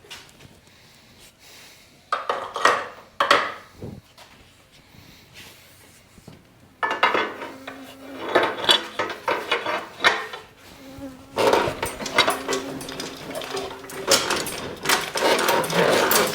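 A few sharp metal knocks, then a power tool buzzing steadily in two long runs, working at a jammed, bound-up part.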